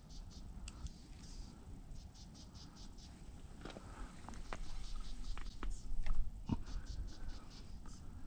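Repeated bursts of rapid high chirping, about eight chirps a second in trills of roughly a second each, from a small animal, over scattered light clicks and rustles close by.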